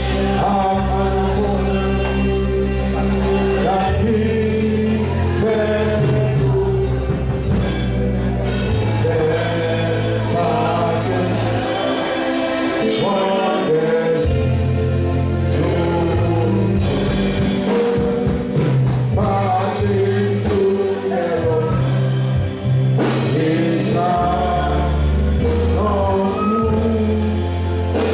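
Gospel music: singing over held bass notes and drums.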